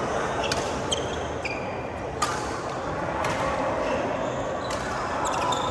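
Badminton rally: sharp racket strikes on the shuttlecock, the loudest about half a second and two seconds in, with short shoe squeaks on the court floor between them.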